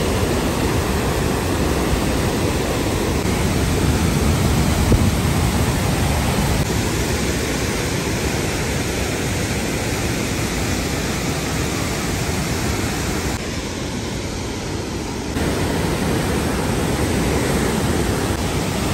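Athabasca Falls, a large waterfall pouring into a narrow rock gorge: a loud, steady rush of water, heaviest in the low end. It dips a little about thirteen seconds in and comes back about two seconds later.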